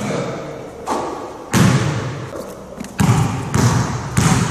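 A basketball bouncing hard on a court floor: about six irregularly spaced heavy bounces, each fading with a short echo.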